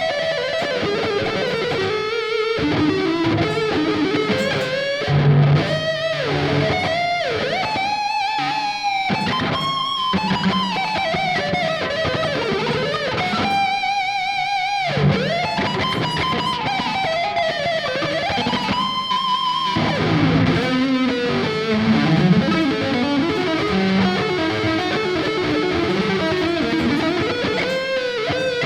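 Ibanez AZ24S electric guitar playing a melodic lead line, with string bends that rise and fall and long notes held with vibrato, over a fuller backing.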